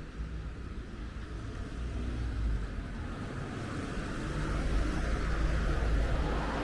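Road traffic on a town street: a low rumble and tyre-and-engine noise that swells over the second half, as a vehicle draws near.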